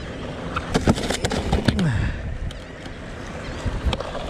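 A quick run of sharp clicks and knocks about a second in, with a few more near the end: hands working the latches and lid of a plastic cooler strapped on a kayak.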